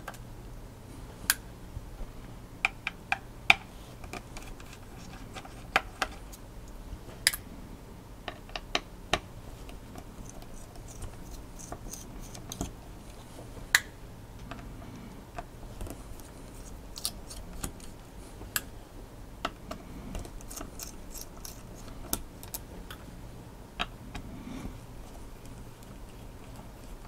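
Small screws being worked out of a graphics card's back plate and dropped into a metal parts dish: scattered, irregular sharp metallic clicks and ticks over a faint steady low hum.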